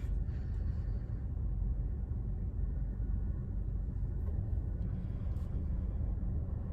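Steady low rumble inside a car cabin with the engine running, the car waiting in a traffic line.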